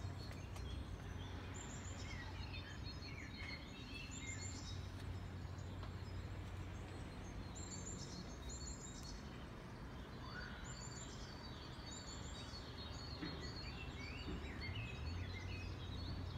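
Small songbirds chirping and trilling in short, high phrases that recur every few seconds, over a steady low background hum.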